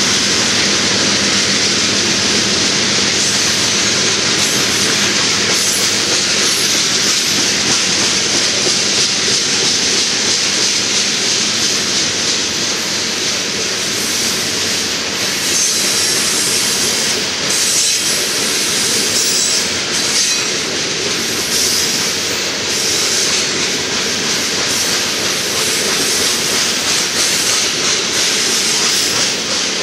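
Covered hopper cars of a long freight train rolling past close by: a loud, steady rumble and rattle of steel wheels on rail. Brief high-pitched wheel squeals come and go midway through.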